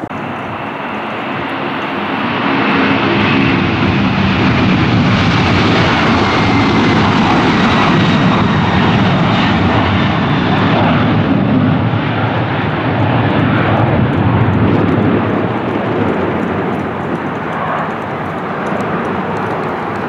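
Boeing 747-400 climbing out after takeoff, its four jet engines at takeoff thrust: a steady roar that swells as the jet passes overhead and eases as it climbs away. A high whine falls slowly in pitch through the first half.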